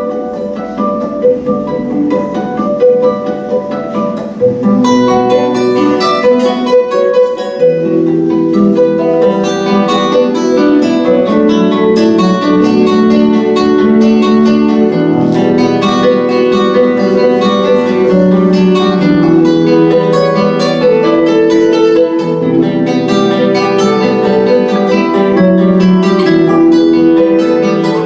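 Instrumental duet of plucked string instruments playing a quick, flowing melody of many picked notes; the texture is thinner at first and fills out about a quarter of the way in.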